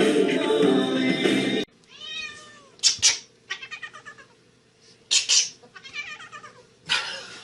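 Music until about a second and a half in, then a cat meowing again and again: a string of drawn-out, wavering meows, some of them loud yowls.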